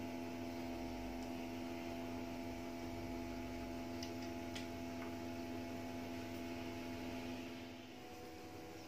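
Steady electrical hum made of several held tones. It softens and changes pitch a little near the end, and a couple of faint clicks fall around the middle.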